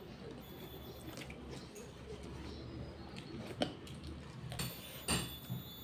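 Chewing and soft wet mouth sounds of a person eating with her fingers, with two sharp clicks, one about three and a half seconds in and a louder one about five seconds in.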